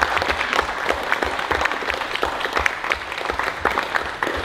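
Applause from a small audience: many hands clapping in a dense, steady patter.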